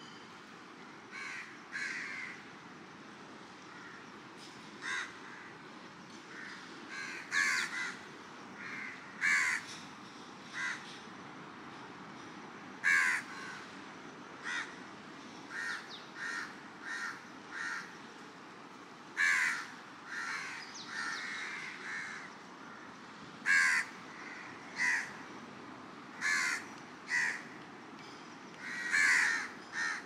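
Crows cawing, short calls one after another every second or two, over a steady low wash of surf.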